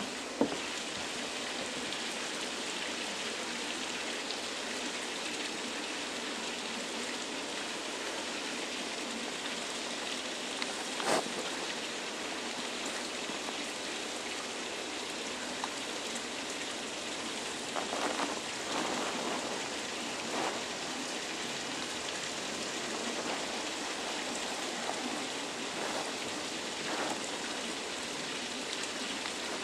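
Steady splashing hiss of falling water, with a sharp click about eleven seconds in and a few brief louder splashes or knocks later on.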